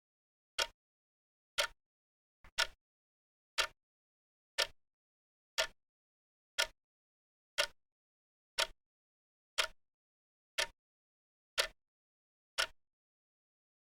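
Steady clock ticking, one sharp tick every second. About two and a half seconds in, a faint extra tick comes just before the regular one.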